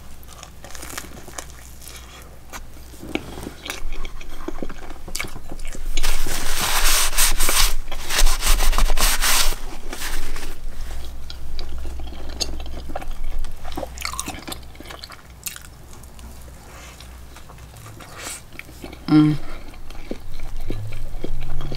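A person chewing and biting food close to the microphone, with many small clicks and a louder noisy stretch about six to ten seconds in.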